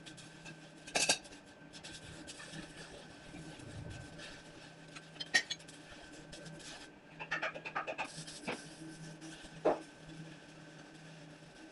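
Scattered light metal clinks and scrapes, a few single clicks and then a quick run of small taps, as tools and a steel workpiece are handled on a bench, over a faint steady hum.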